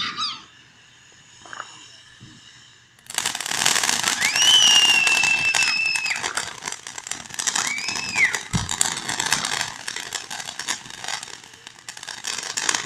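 Fireworks going off: a dense crackling barrage starts suddenly about three seconds in and keeps on. A high shrill whistle sounds over it twice, and there is a single low boom near the middle.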